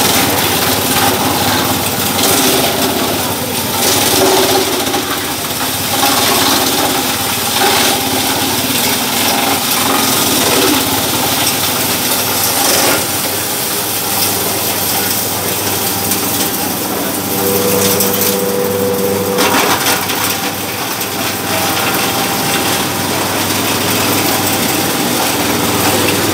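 A small motor-driven farm processing machine with a feed hopper running steadily, with a dense rattle of material passing through it.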